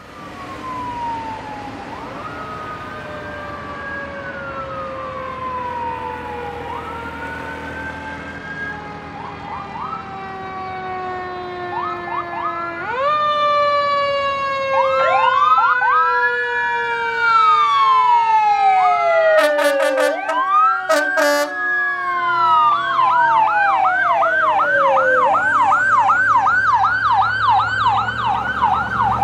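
Electronic sirens of a fire engine and an ambulance running code: slow rising and falling wails, two sirens overlapping from about halfway, and short horn blasts about two-thirds through. Near the end one siren switches to a fast yelp of about three cycles a second.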